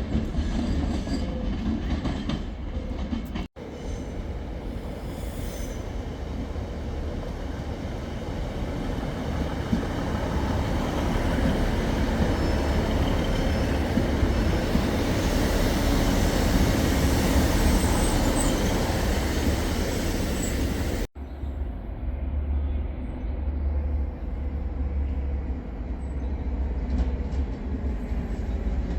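A train running through a railway station. Its rumbling noise swells to a peak in the middle, with a faint high wheel squeal near the loudest point. The sound breaks off abruptly twice where the recording is cut.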